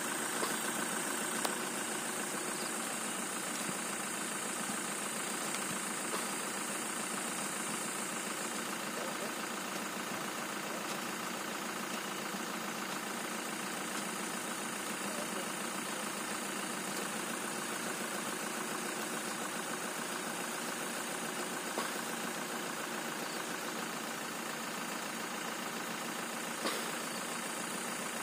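An engine idling steadily, with a few short knocks from shovels working a grave.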